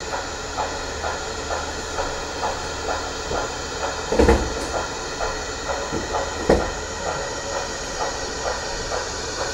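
Model narrow-gauge steam locomotive's sound decoder playing steady steam chuffs, about two a second, over a constant hiss, as the locomotive runs slowly. Two louder knocks come about four and six and a half seconds in.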